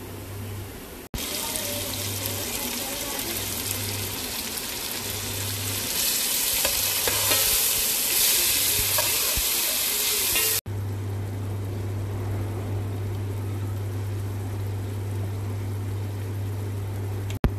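Hot oil sizzling in a pot of fried onions as chopped tomatoes and ginger-garlic and chilli pastes go in. The sizzle grows louder while a spoon stirs and scrapes through the mixture. After a cut about ten seconds in, a quieter sizzle continues over a steady low hum.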